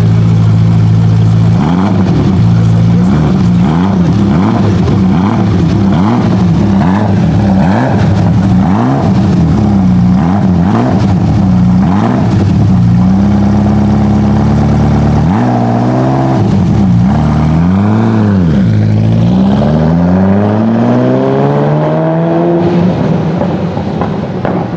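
Ferrari F40's twin-turbo V8 idling, then blipped over and over, the revs rising and falling about once a second. Near the end come a held rev, two bigger revs and one long climbing rev.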